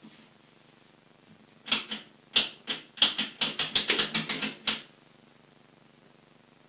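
A quick run of about fifteen sharp clicks or taps over some three seconds. They start a second and a half in, irregular at first, then come about four a second.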